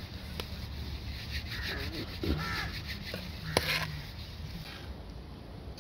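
Peanuts being stirred in hot sand in a pan, a run of short, dry scraping strokes. A brief call sounds in the background about two seconds in.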